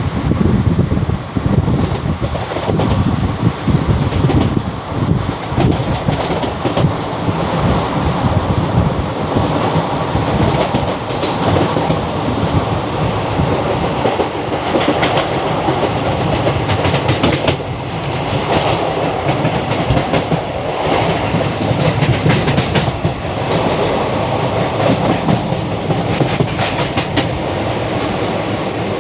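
Passenger train of LHB coaches running along the track: a steady rumble and rush of the wheels on the rails, with scattered sharp clicks, more of them in the second half.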